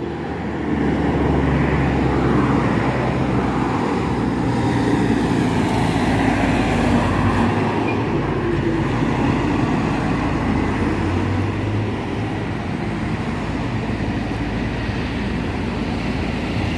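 Steady road traffic noise from cars, minibuses and a container truck going by on a highway, with low engine hum throughout.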